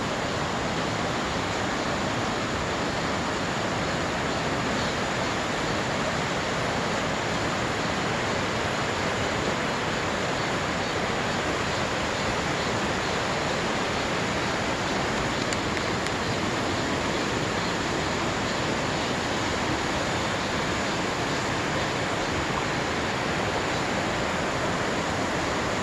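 Water rushing steadily, an even unbroken noise with no change in level, as of a stream or waterfall.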